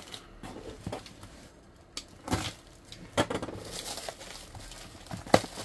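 A cardboard box being handled and pulled out of a black plastic bag: a few sharp knocks and taps, with plastic crinkling through the second half.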